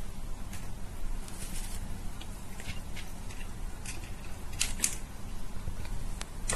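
A cat eating dry kibble from a plastic bowl: irregular crunches and clicks, the loudest cluster a little past the middle, over a low steady hum.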